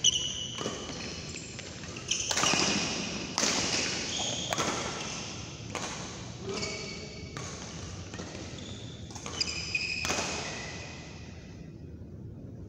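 Badminton rally: rackets striking the shuttlecock about once a second, with sports shoes squeaking on the court mat between shots, echoing in a large hall. The exchange dies away near the end.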